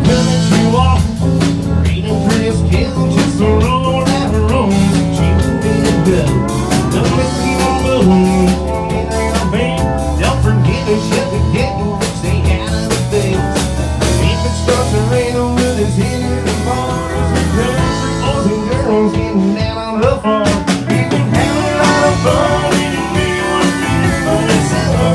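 Live band playing amplified through a stage PA: drum kit, bass guitar, electric and acoustic guitars, with a man singing lead.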